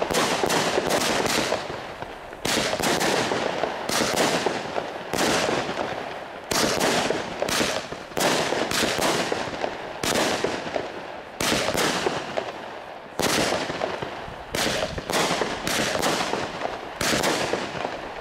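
Consumer firework battery (cake) firing shot after shot, about one a second. Each shot is a sharp bang followed by a fading crackle from the burst.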